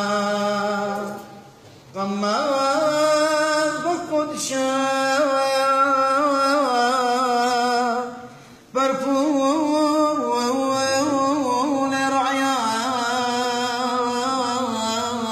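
A man's solo voice chanting a madrasha, an Assyrian Church hymn in Syriac, in long phrases with wavering, ornamented turns on the notes. He breaks off for breath about a second in and again around eight seconds in.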